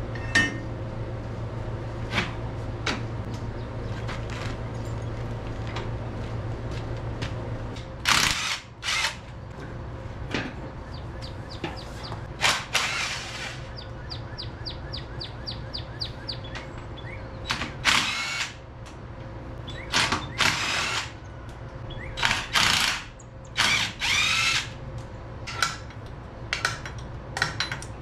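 For about the first eight seconds there is only a steady low hum and a few light taps. Then a handheld power tool runs in a dozen or so short bursts, each rising and falling in pitch, as bolts are run out during the tractor teardown. Midway there is a short run of even, rapid clicks.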